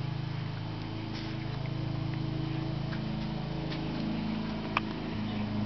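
Holden VT Commodore's 3.8-litre V6 idling steadily, heard from above the open engine bay, with one sharp click near the end.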